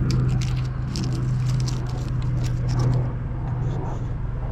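Hazelnut husks rustling and crackling as fresh nuts are husked by hand: quick clicks and crackles, thick for the first three seconds and then sparser, over a steady low hum.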